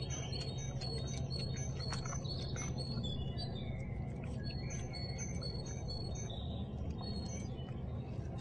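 Small songbirds chirping and calling over and over in short, high notes above a steady low rumble.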